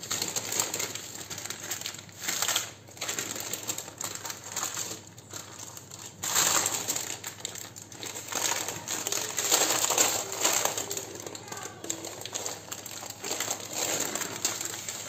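Baking paper crinkling and rustling as a cream-filled sponge cake roll is rolled up and wrapped in it, in irregular bursts.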